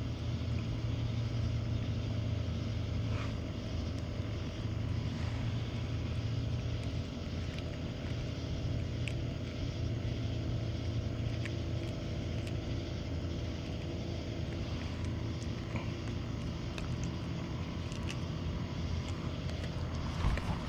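A steady low mechanical hum, like a motor or engine running at an even speed, with a few faint clicks over it.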